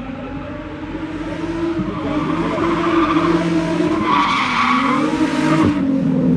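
A drift car's engine revving up and down through a slide while its tyres squeal and scrub, growing louder about halfway through.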